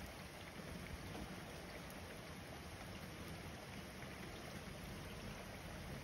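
Steady rain falling on a street, a soft, even hiss with a low rumble underneath.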